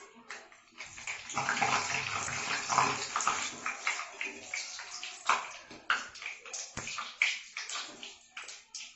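Hot oil sizzling and crackling in a cooking pan. It jumps up sharply about a second in as something goes into the oil, then settles into scattered pops and spits.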